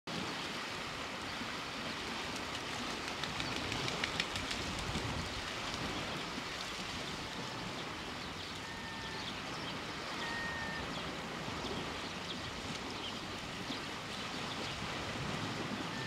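Small waves lapping and trickling among shoreline rocks: a steady wash of water with many small ticks and splashes.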